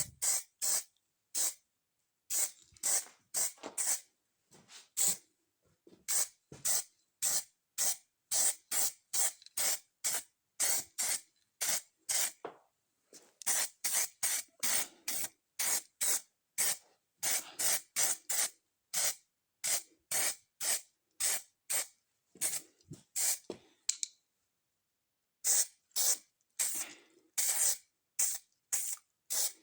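Primer spray can hissing in short repeated bursts, about one or two a second, as parts are sprayed with primer, with a pause of a second or so near the end.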